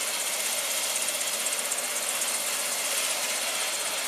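Engines running steadily, with a strong high hiss over them.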